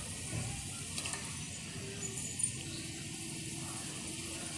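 Soft, steady sizzling of onion-tomato masala frying in a steel pot as raw chicken pieces go in, with a faint clink about a second in and another around the middle.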